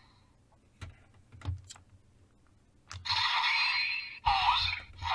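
A few sharp plastic clicks as a toy Raise Buckle is handled and set in a Kamen Rider Geats toy belt, then from about three seconds in the belt's small speaker plays electronic sound effects and music in loud chunks.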